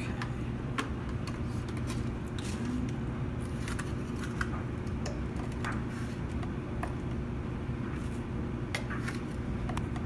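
A small scoop scraping and clicking against a plastic coffee-grounds bin as ground coffee is spooned into a paper filter: scattered light clicks over a steady low hum.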